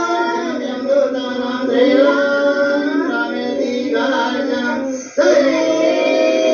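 Devotional Hindu aarti hymn sung in long, held notes with musical accompaniment, broken by a short pause about five seconds in.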